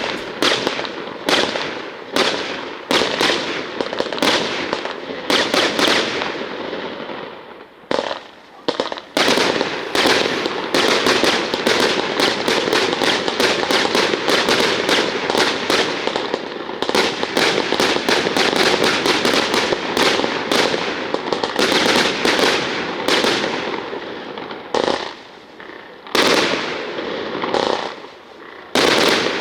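Fireworks going off: a rapid run of loud bangs, each with a ringing tail. In the middle they crowd together into an almost continuous crackling barrage, with short lulls about a quarter of the way in and again near the end.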